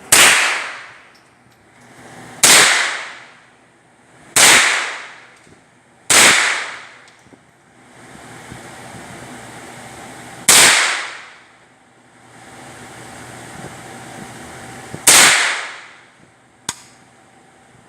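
Six gunshots at an indoor shooting range, each followed by about a second of echo off the range walls. The first four come about two seconds apart, then two more roughly four and a half seconds apart. A fainter sharp crack comes near the end.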